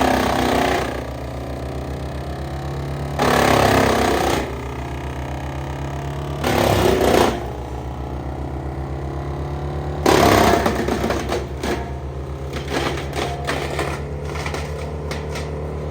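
Morbark Model 12 Blizzard drum chipper's Caterpillar diesel engine running steadily while brush is fed through. Loud chipping bursts of about a second each break in four times, and near the end a run of short cracks follows as smaller pieces go through.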